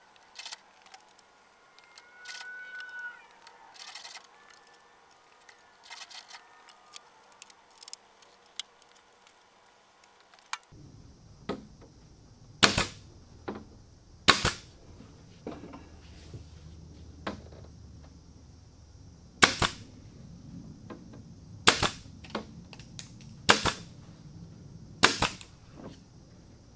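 Porter-Cable nailer driving nails into an oak frame: six sharp, loud snaps spread through the second half, over a steady low hum. Before that, only scattered quiet clicks and taps of handling.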